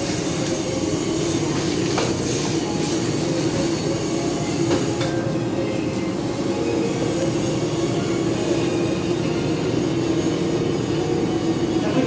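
Steady drone of a ship's engines and machinery heard inside the vessel, with a couple of faint knocks.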